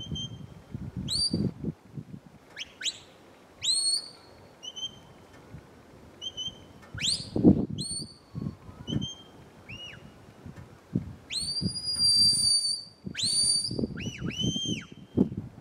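A sheepdog handler's whistle commands directing a working Border Collie on sheep. The whistle gives short level notes and sharp rising and falling notes, then two long held whistles about eleven and thirteen seconds in, followed by quick falling-and-rising notes near the end.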